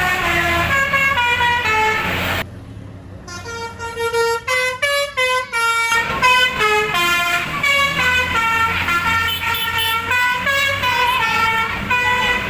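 Bus 'telolet' Basuri multi-tone horn playing a quick tune of stepped notes over the bus's engine. It breaks off briefly about two and a half seconds in, comes back as a run of short quick notes, then plays the melody on to the end.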